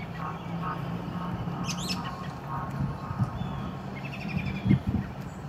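Songbirds calling: a run of short repeated notes, a few higher chirps, and one quick sweeping whistle about two seconds in, over a steady low rumble. A couple of soft thumps near the end.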